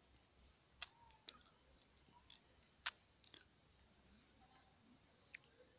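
Near silence: a faint, steady high-pitched trill in the background, with a few soft clicks.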